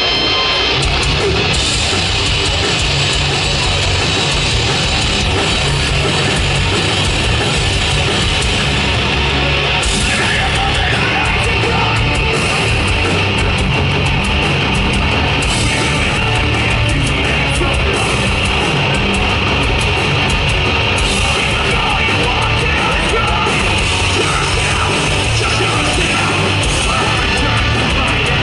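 Live hardcore punk/sludge metal band playing loud, with distorted guitars, bass and pounding drum kit, and a shouted vocal, as heard through a crowd recording at a festival.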